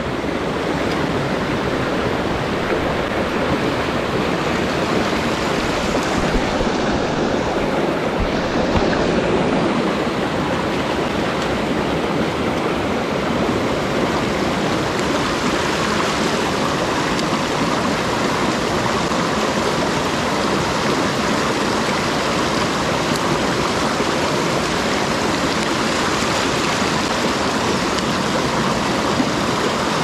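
Rushing water of a mountain stream, a steady even rush with no breaks.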